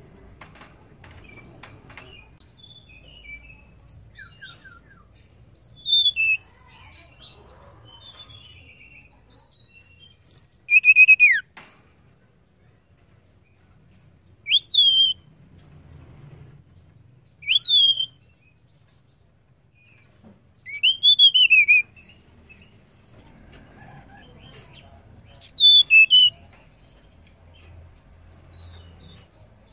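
A tledekan (Cyornis blue flycatcher) calling in six short, separate whistled phrases a few seconds apart, each a quick high sweep falling in pitch. The loudest comes about ten seconds in.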